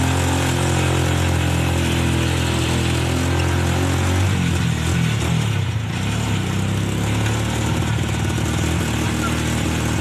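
Engine of an open-sided passenger vehicle running steadily as it drives along, its pitch shifting about four to five seconds in, then settling again.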